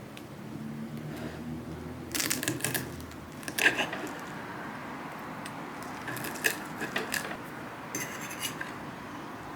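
Kitchen clatter: dishes and utensils clinking in four short bunches of sharp clinks. A low steady hum runs under the first few seconds.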